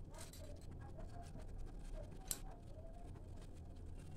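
Faint sounds of a steel ladle scooping curry gravy in a steel kadhai, with one light clink about two seconds in.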